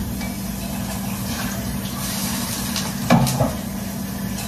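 Steady hiss of food cooking on the stovetop, over a low steady hum, with a brief clatter a little past three seconds in.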